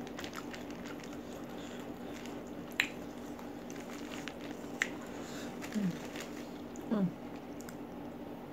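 Close-up eating sounds: chewing and fingers squishing and picking through rice and chicken in green chili sambal on paper, with a few small sharp clicks. Two brief low vocal sounds from the eater come in the second half.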